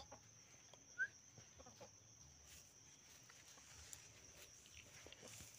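Chicken giving one short, high, rising chirp about a second in, with a few faint soft clucks, over a steady high insect drone; otherwise near silence.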